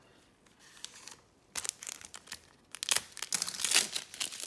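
Gloved hands handling a stack of trading cards, giving crinkling, scratchy rustles. Quiet at first, the rustling starts about a second and a half in and is busiest and loudest over the last second and a half.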